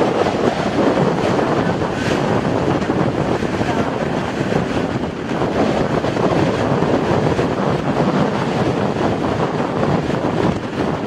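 Steady rushing noise of the jet engines of a Boeing 737 rolling along the runway, mixed with wind buffeting the microphone.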